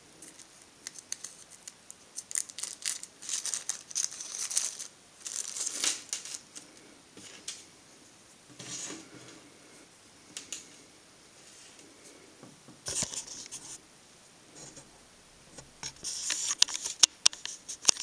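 A small plastic zip-lock bag of carbon brushes being handled, crinkling and rustling in short bursts, with a few sharp clicks near the end as small parts are set down on a steel bench.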